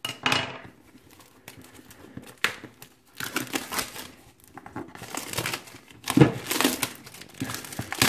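Clear plastic shrink-wrap being peeled off a cardboard product box and crumpled, crinkling in irregular bursts, with a louder bump about six seconds in.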